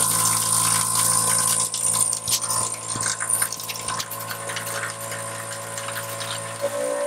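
CNC milling machine taking a facing cut across an aluminium block: a steady spindle and cutter whine over a hiss of mist coolant, louder for the first two seconds, then settling.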